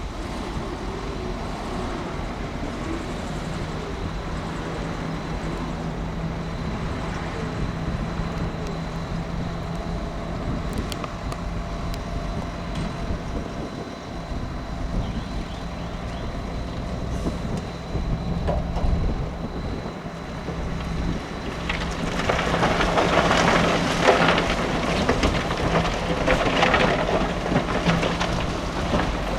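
Heavy diesel construction machinery running steadily, with a low engine drone and a faint high whine. About three quarters of the way through, a loud, dense rattling of gravel and rock being pushed or dumped joins in.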